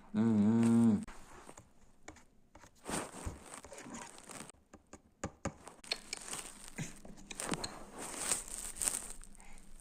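A person humming for about a second, then faint, scattered clicks and rustling.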